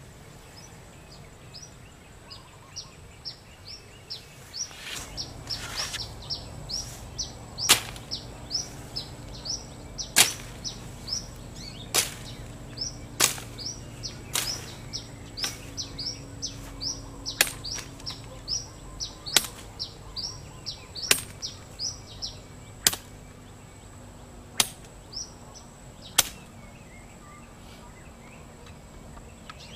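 A high-carbon steel bolo machete chopping through weeds and brush: about a dozen sharp cuts, roughly every one and a half to two seconds. Birds chirp rapidly in the background over the first half.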